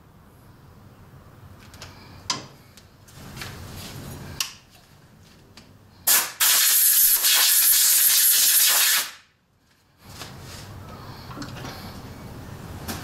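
A jet of pressurised gas hissing loudly for about three seconds, cutting off sharply. Before it come a few metal clinks and knocks from the aluminium vice being handled on the drill-press table.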